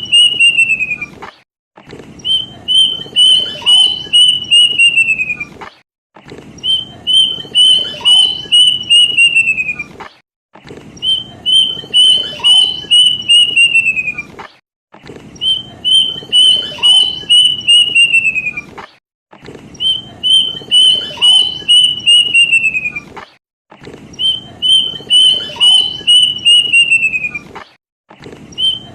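Kedasih cuckoo (Cacomantis) song, repeated over and over: each phrase is a quick run of about eight clear whistled notes that hold their pitch and then fall at the end. A new phrase comes about every four seconds with a short silent gap between, a looped lure call (pancingan) used to get caged kedasih singing.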